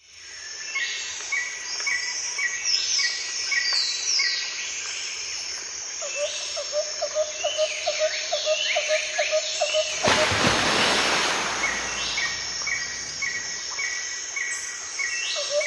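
Several birds calling and singing outdoors: repeated short chirps and falling whistles, with a run of quick lower notes about six seconds in. About ten seconds in, a burst of rushing noise covers the calls for a couple of seconds.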